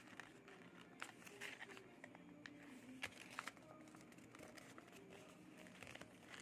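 Faint, scattered crinkles and small taps of a sheet of paper being folded and creased by hand, over quiet room tone.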